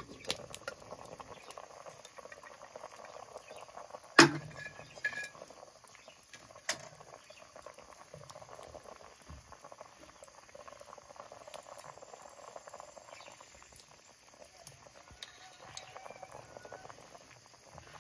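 Pot of sweet potatoes (kamote) boiling, with soft bubbling throughout. A sharp metal clink about four seconds in as the lid comes off, a lighter clink a couple of seconds later, and small scrapes of a fork poking the sweet potatoes to test whether they are done.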